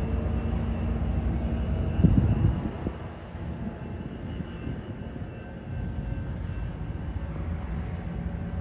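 Diesel locomotive of an Amtrak San Joaquin passenger train running with a steady low rumble as the train pulls away. A short loud burst comes about two seconds in, after which the rumble is a little quieter.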